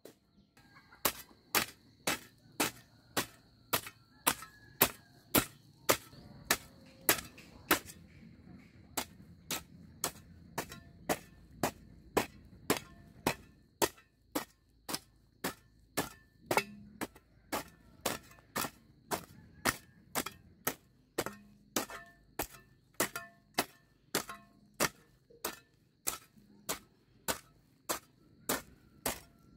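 A hand hoe chopping into dry, clumpy soil: sharp strikes in a steady rhythm of about two a second, starting about a second in.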